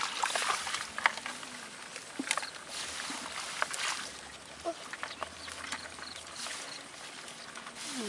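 Dry straw and grass rustling and crackling as a hand rummages through it in a wire-mesh fish trap, with many small irregular clicks.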